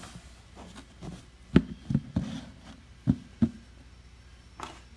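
A string of sharp knocks and clacks of hand tools and parts being picked up and set down on a wooden workbench: about six in all, coming in pairs, the loudest about a second and a half in.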